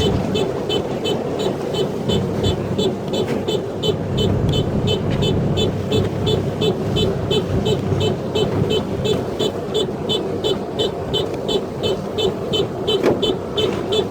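Rice combine harvester running: a steady engine and machinery noise, with a high ticking that repeats about three times a second.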